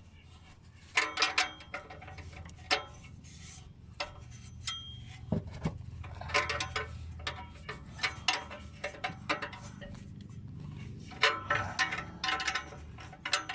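Wrench and metal exhaust parts clinking together in irregular knocks, each ringing briefly, over a low steady hum.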